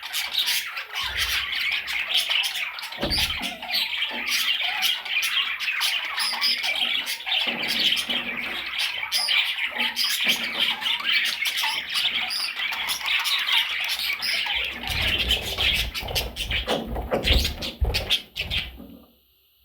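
Budgerigars chirping and squawking, many dense overlapping calls, with low knocks and thumps over the last few seconds; it all cuts off suddenly just before the end.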